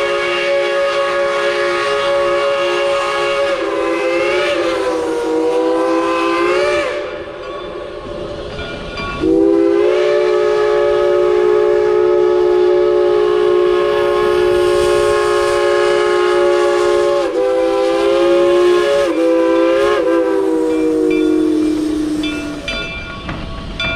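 Steam locomotive's chime whistle blowing for departure: two long blasts of a chord of several tones, the first wavering and bending in pitch before it stops, the second about thirteen seconds long, wavering a couple of times and sagging in pitch as it dies away.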